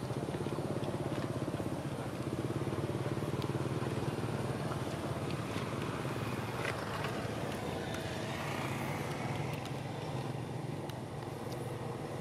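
A small engine running steadily with a low, evenly pulsing hum, with a higher note rising and falling about eight seconds in.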